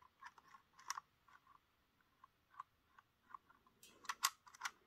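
Light plastic clicks and taps from a Roco model railway coach being handled and turned in the fingers, with a quick run of sharper clicks near the end.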